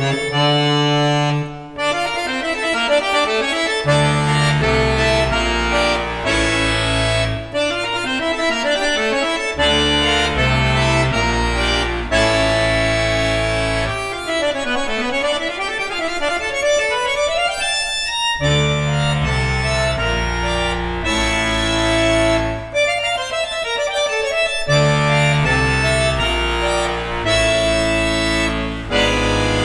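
Jupiter chromatic button accordion (bayan) with Arapov hand-made reeds playing a piece: held chords over a changing bass line, with quick runs down and back up the scale about halfway through, and a few short breaks between phrases.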